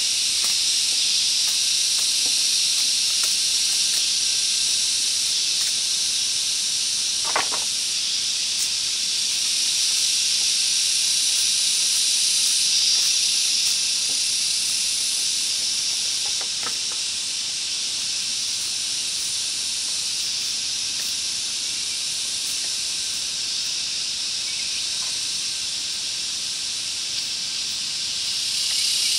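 Dense, steady high-pitched drone of a tropical forest insect chorus. Two brief knocks sound about 7 and 17 seconds in.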